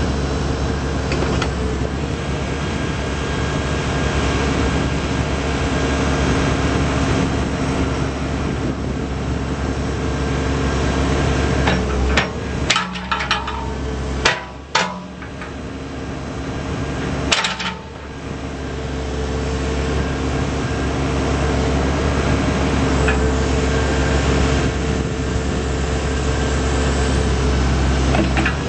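Case 580M backhoe loader's four-cylinder diesel engine running steadily. Around the middle come several sharp metallic clanks, and the engine sound briefly dips.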